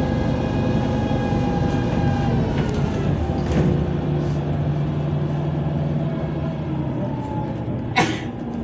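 Cabin sound of a MAZ 203.065 city bus under way: engine and drivetrain running with a whine that falls slightly and fades a couple of seconds in, then a steady low hum. Near the end, a short sharp burst of noise.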